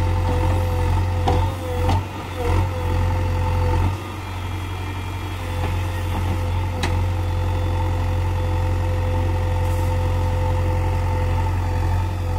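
JCB 3DX backhoe loader's diesel engine running steadily while its backhoe arm digs into a soil heap, with a steady whine over the engine drone. A few sharp knocks sound in the first half.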